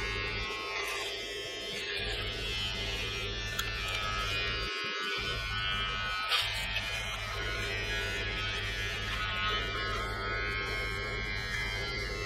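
Braun BT5265 electric beard trimmer running steadily as it is drawn through scalp hair, cutting it.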